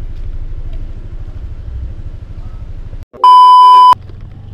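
Scooter engine idling with a steady low rumble; about three seconds in, the sound cuts out and a loud, high-pitched electronic beep sounds for just under a second, after which a quieter engine-and-road rumble resumes.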